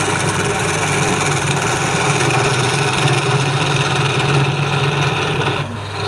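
Woodturning lathe running with a steady motor hum, a tool cutting and rubbing on the spinning wood; the cutting noise drops off briefly near the end.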